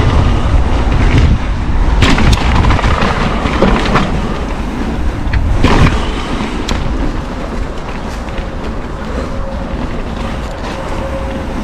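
Mountain bike rolling down a dirt trail: tyre noise and wind rumble on the camera microphone, with the bike rattling and several sharp knocks over bumps between about two and six seconds in, then quieter rolling.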